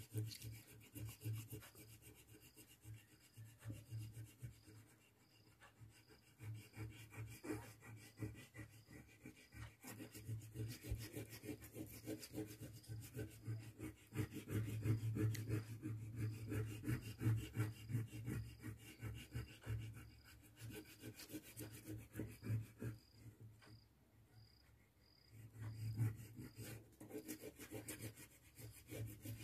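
Red wax crayon rubbed quickly back and forth on drawing paper, a fast, steady scratchy rubbing as a shape is coloured in. It pauses briefly twice: about five seconds in, and a few seconds before the end.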